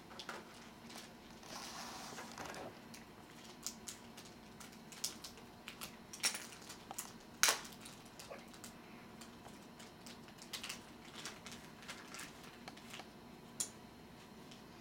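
Hands handling a thin paper sheet and small toy pieces: a soft rustle about two seconds in, then scattered light clicks and taps, the sharpest about seven and a half seconds in.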